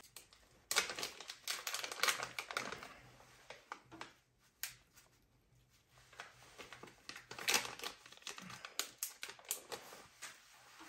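Quick, light clicks and rattles in two spells, with a quieter gap between: a small container of aonori (dried green laver) being fetched, handled and shaken.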